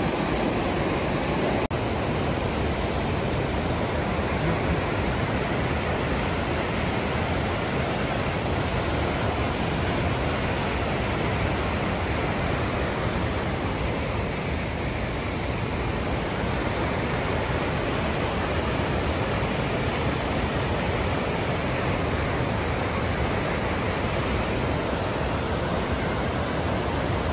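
Steady rushing roar of a fast mountain river, continuous and even in loudness.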